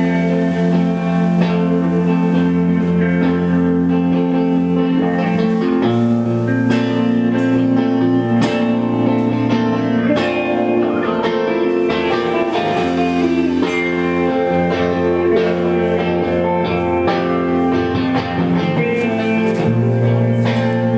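Live band music: an instrumental guitar passage between sung lines, sustained chords that change every few seconds.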